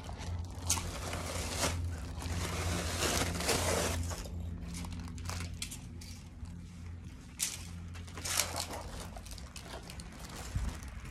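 Plastic wrapping crinkling and crunching as it is handled, in irregular crackles and sharp snaps, over a steady low hum.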